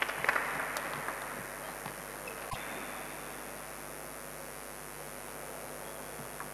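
Table tennis spectators clapping, dying away within the first second or so, then a steady hum of the hall with a single sharp knock about two and a half seconds in.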